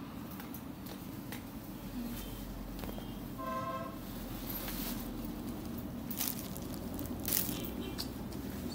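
Faint handling noise: scattered small clicks and rustles over a low steady rumble, with a short pitched toot about three and a half seconds in.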